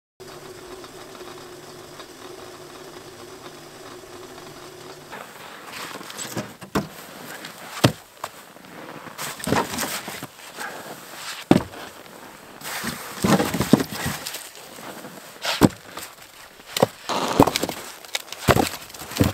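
Split firewood logs knocking and clattering against each other as they are pulled one by one from a snowy woodpile, a string of sharp wooden clunks with scuffing between them. A steady hum runs under the first few seconds before the clunks begin.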